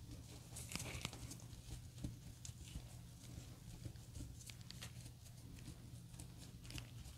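Faint crackling and rustling as gloved hands crumble and pull apart loose potting soil around a snake plant's root ball, with scattered small ticks. A low steady hum runs underneath.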